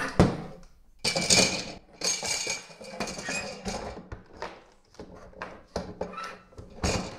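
Hard plastic parts clicking, knocking and scraping as the quartz glass sleeve, wrapped in its plastic spiral cleaning element, is slid into the black plastic housing of an OASE Bitron C UV clarifier and the end cap is worked onto it.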